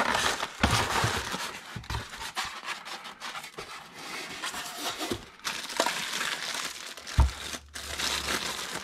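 Clear plastic wrap crinkling as a die-cast toy trailer in its plastic bag is handled and lifted out of a styrofoam packing insert. There is a single knock with a low thump about seven seconds in.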